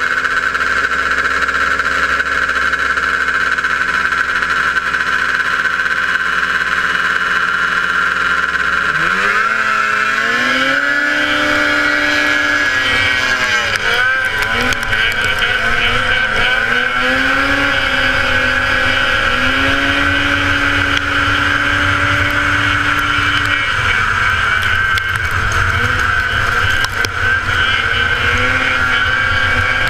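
1977 Polaris TX-L snowmobile's two-stroke engine idling steadily at the race start, then revving up about nine seconds in as the sled launches. It runs on at high revs, the pitch dropping briefly and climbing again several times.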